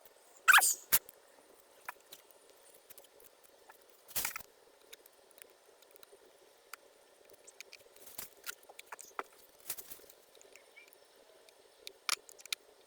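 Small plastic clicks, scrapes and rustles of hands working clips onto a replacement engine vacuum hose, with a few sharper snaps, the loudest about half a second in and about four seconds in, over a faint steady hum.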